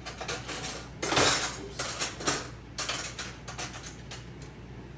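Metal cutlery and dishes clinking and clattering, as when a spoon is fetched and handled. There is a longer, louder rattle about a second in, then scattered lighter clinks.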